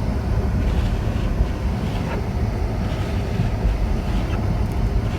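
Steady low rumble of a car driving on a snowy road, heard from inside the cabin.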